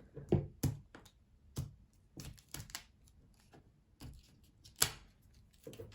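Irregular light knocks and clicks from objects being handled and set down on a hard surface, about a dozen over a few seconds, with one sharper knock near the end.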